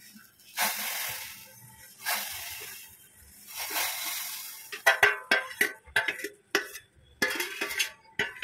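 Steel spoon scraping roasted vermicelli off a stainless steel plate into a steel pot of milk: a few rushing scrapes in the first half, then a quick run of sharp metallic clinks and taps of the spoon against the plate and pot rim.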